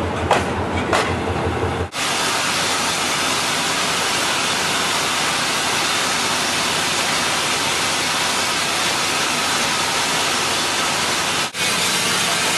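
A railway passenger coach rolling slowly past with a low rumble and a few clicks of its wheels over the rail joints. About two seconds in, a loud, steady hiss of steam from a standing steam locomotive takes over, broken for a moment near the end.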